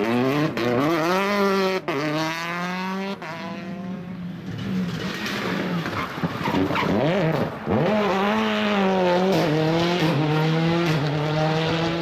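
Rally car engine revving hard under acceleration. The pitch climbs and drops sharply at each upshift, dips and swoops as the car slows for a corner, then climbs again through the gears as it accelerates away.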